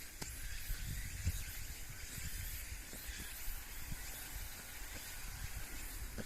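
Outdoor ambience: wind rumbling on the microphone, under a steady high-pitched hiss. No train or crossing bell sounds.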